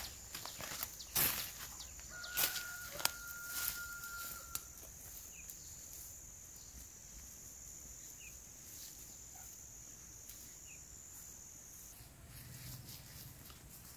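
Footsteps pushing through leafy brush, with the plastic bag crinkling in the first few seconds. Under them is a steady, thin, high-pitched whine that stops about twelve seconds in, with a few faint chirps.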